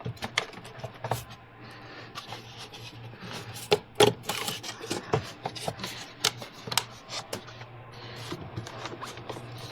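Hands and tools working at plastic cooling-system parts in a car's engine bay, working the lower radiator hose free: scattered sharp clicks and knocks with some rubbing, over a faint steady low hum.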